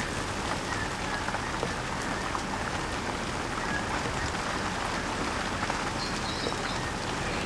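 Light rain falling steadily on grass: an even hiss with scattered small drop ticks.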